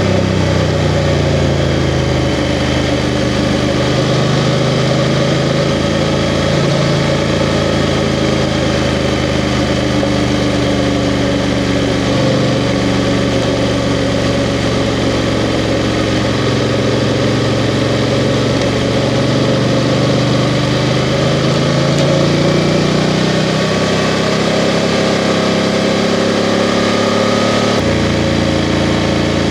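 BMW F 750 GS motorcycle's parallel-twin engine running under way, its note shifting gently up and down with the throttle, over a steady hiss.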